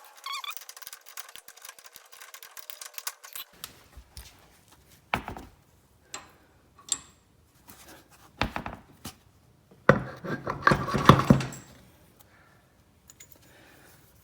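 Metal-on-metal clicks, knocks and clatter from a lawn tractor's front spindle parts being handled and fitted together as the steering arm goes onto the spindle. A quick run of small clicks comes first, then single knocks about a second apart, and a louder burst of rattling near the end.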